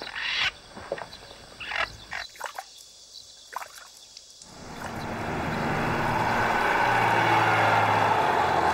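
Short, scattered animal calls, then from about halfway a tour bus's engine approaching, its low hum and road noise growing steadily louder.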